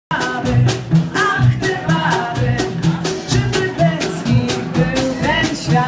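Live band playing a Polish interwar popular song: a woman sings into a microphone over a steady snare-drum beat, with guitar and double bass.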